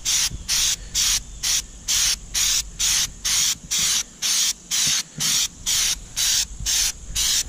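Flex Seal aerosol spray can spraying in short hissing bursts, about two a second.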